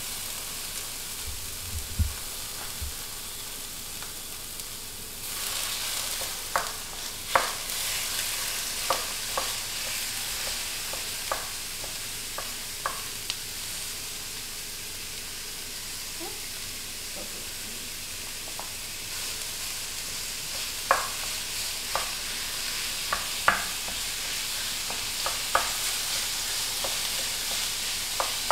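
Ground beef sizzling in a preheated cast-iron skillet while a wooden spoon breaks it up and stirs it, with scattered knocks of the spoon against the pan. The sizzle grows louder about five seconds in.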